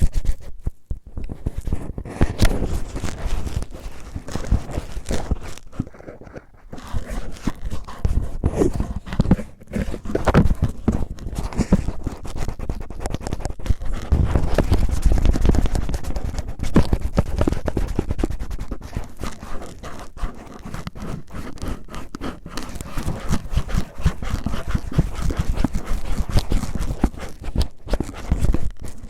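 Cellophane crinkled and rubbed close against the microphone to imitate ear cleaning. It makes a dense, irregular stream of crackles and scratches, with heavier rubbing stretches and a brief lull about six seconds in.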